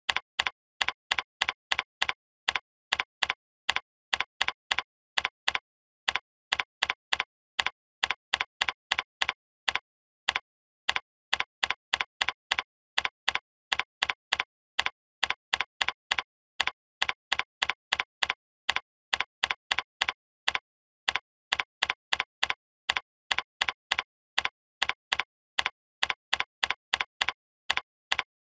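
Typing on a computer keyboard: short, identical keystroke clicks with dead silence between them, about two to four a second, with two brief pauses.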